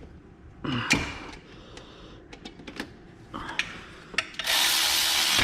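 Hand-tool clicks and clinks while working a rusted bolt, then a loud steady hiss of about a second near the end.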